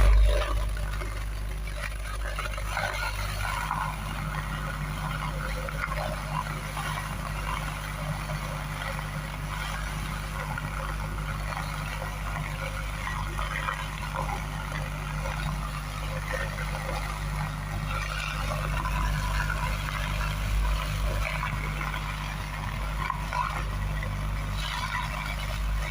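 JBL PartyBox 110 portable speaker playing a steady, very deep bass test tone, with a noisy crackle over it.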